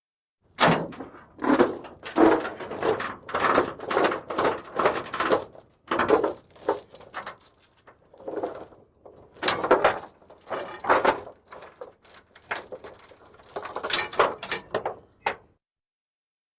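Steel chain and chain ratchet binder clanking and rattling in a run of quick metallic strokes, roughly two a second, with a couple of short pauses.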